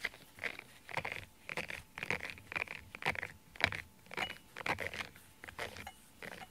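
Fingers pulling loose cat fur out of the teeth of a rubber grooming brush: short rustling scrapes repeating about twice a second.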